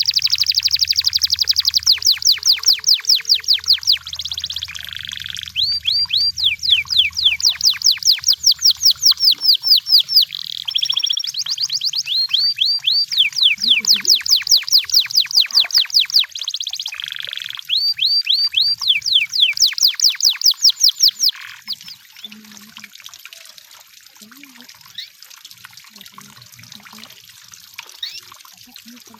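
Canary singing: long trills of fast, evenly repeated high sweeping notes, several a second, broken now and then by a short steady whistled note. The song stops about three quarters of the way through.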